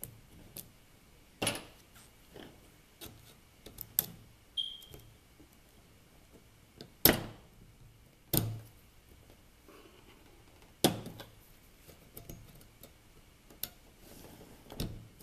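Scattered clicks and taps of small metal and plastic parts being handled and pushed into place in an open version 2 airsoft gearbox shell, with a few sharper snaps about halfway through.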